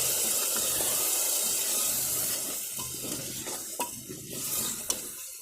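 Spice masala with garlic paste sizzling in hot oil in a cooker as a splash of water is stirred in, the spoon scraping and now and then clicking against the pot. The sizzle dies down steadily through the second half.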